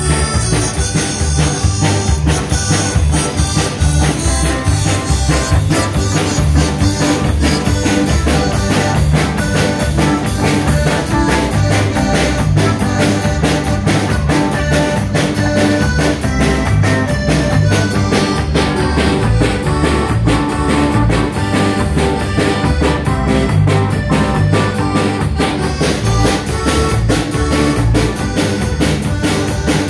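Live band playing a square-dance tune on a Hohner button accordion, with electric guitar and a drum kit keeping a steady beat.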